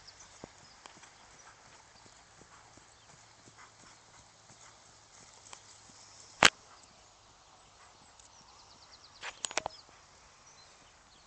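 Horse trotting on grass under a rider: faint, regular hoofbeats. A single loud sharp click comes about six and a half seconds in, and a short cluster of clicks about nine and a half seconds in.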